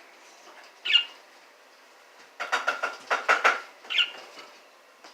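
Pet parakeets calling: a short high chirp about a second in, a quick run of about eight sharp squawks, then another chirp.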